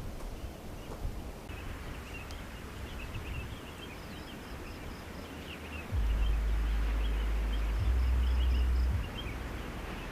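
Strong wind buffeting the microphone in a deep rumble, loudest in a gust from about six to nine seconds in, over faint high chirping.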